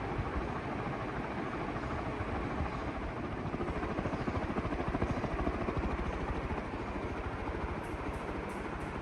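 CMC twin-dog industrial ceiling fan running, its blades giving a steady rush of air with a fast, even chopping beat.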